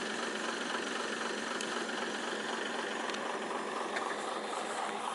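Tata 4x4 logging truck's diesel engine idling steadily.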